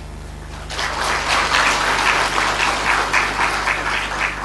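Audience applauding. The clapping starts under a second in, carries on dense and even, and thins out near the end.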